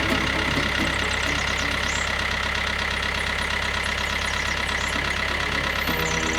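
Engine idling steadily with an even, fast pulsing beat.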